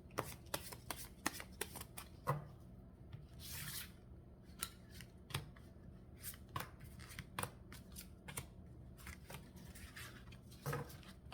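A deck of tarot cards being shuffled and handled: a string of faint, irregular snaps and clicks, with a brief swish about three and a half seconds in.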